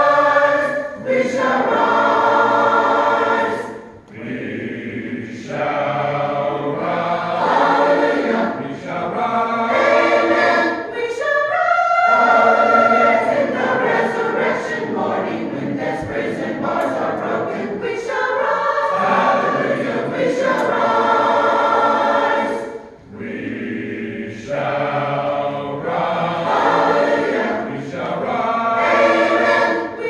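Mixed church choir singing a gospel hymn in long phrases, with brief breaks between phrases about 4 seconds in and again past the middle.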